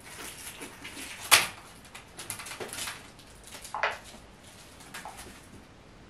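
Kitten scuffling and grappling with a feather wand toy on carpet: irregular rustling and scratching, with one sharp loud knock about a second in and a few shorter scuffs after.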